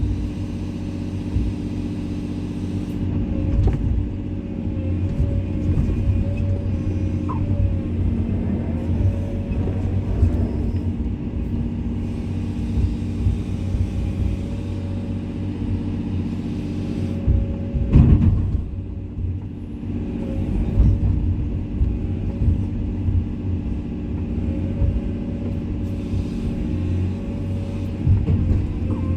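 Komatsu hydraulic excavator's diesel engine running steadily, with scattered clunks and knocks; the loudest comes about eighteen seconds in.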